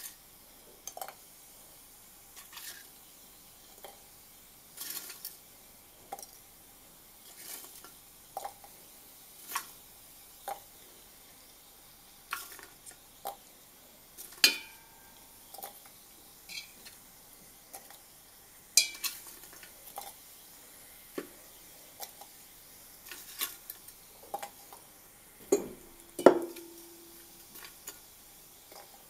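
Metal tongs clinking and tapping against glass beakers as chunks are picked out of one beaker and dropped into another. The taps are short and irregular, about one every second or two, some ringing briefly, with the loudest knock near the end.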